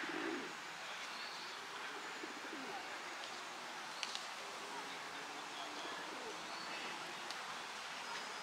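Faint outdoor birdsong with low, soft cooing typical of a pigeon, over a steady hiss. A couple of short sharp clicks come about four seconds in.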